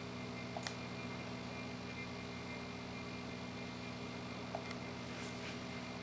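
Steady low electrical hum with a couple of faint clicks, one about half a second in and one near the end.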